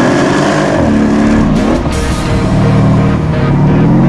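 Mercedes-AMG 5.5-litre V8 biturbo engine accelerating hard, its note climbing in pitch, dropping back about one and a half seconds in, then climbing again near the end as it pulls through the gears.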